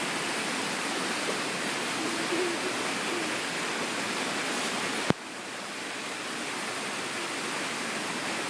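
A storm-swollen creek rushing steadily in flood, running far above its usual trickle. About five seconds in there is one sharp click, after which the water sounds briefly quieter before it builds back.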